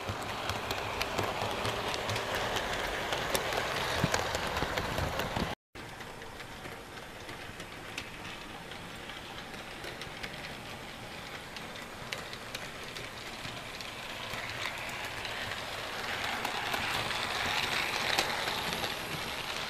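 HO-scale model train running on sectional track: a steady rolling rattle of wheels on rails with scattered clicks at the rail joints. The sound cuts out for an instant about five and a half seconds in, and swells again near the end.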